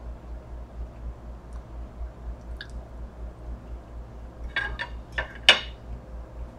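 Knife and fork clinking and scraping on a plate while cutting boneless chicken wings: a few sharp clinks late on, the last the loudest. A steady low pulsing hum runs underneath.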